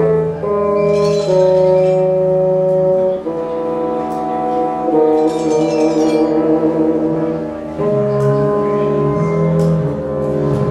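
Symphony orchestra playing a contemporary score: slow, sustained chords that move to new pitches every second or two, with high shimmering swells twice.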